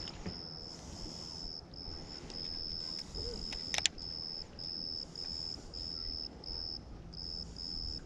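A high-pitched chirping, steady in pitch, repeated in short pulses of under half a second each, with two sharp clicks a little under four seconds in.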